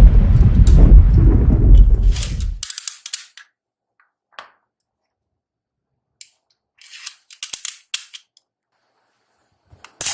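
Toy gun shots: a loud, deep blast dies away over the first two and a half seconds. Then come scattered sharp cracks and clicks, with a quick cluster of them about seven to eight seconds in and another near the end.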